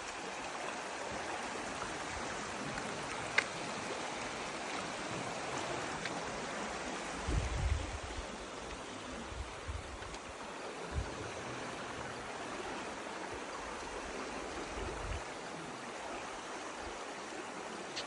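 Fast-flowing river water in flood, a steady even rushing. A sharp click about three and a half seconds in and a few low thumps later on stand out above it.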